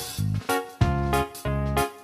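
Upbeat background music with a bouncy beat: short plucked keyboard notes over a bass line, several notes a second.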